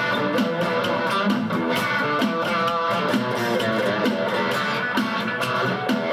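Electric guitar with a Chinese-made Alnico pickup in the bridge position playing an instrumental theme, over a backing track with a steady beat.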